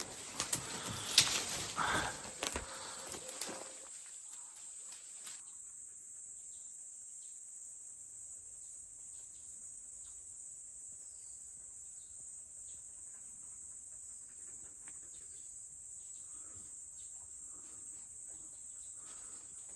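Insects in forest giving a steady, high-pitched drone. Irregular rustling and knocks sound during the first few seconds, then only faint scattered clicks.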